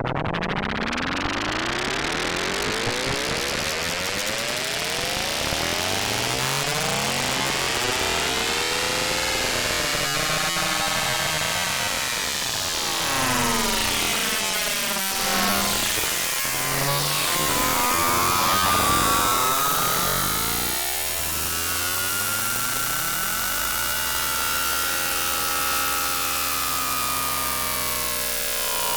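Raw synthesized experimental sound generated in ArtMatic Pro: a loud, harsh hiss laced with many overlapping tones sweeping up and down in pitch. Toward the end a few steadier tones hold in the middle and low range.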